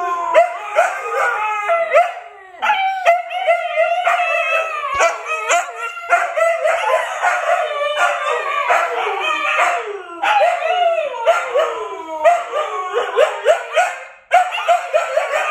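Siberian huskies howling and yipping together, many short sliding calls overlapping one another with barely a break.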